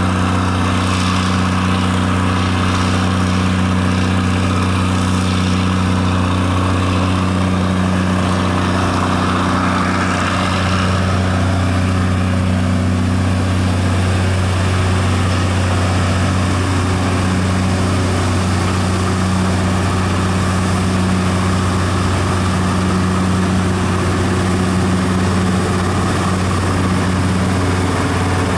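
Old Manitowoc crawler crane's engine running steadily with a low, even drone as the crane swings and hoists its clamshell bucket.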